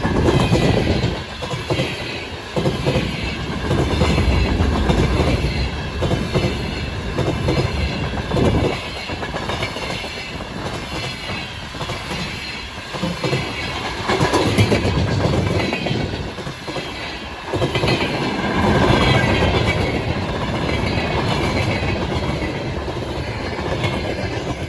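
Freight train's wheels clattering over rail joints in a repeated clickety-clack as the wagons roll past, loudness rising and falling as groups of wheels pass.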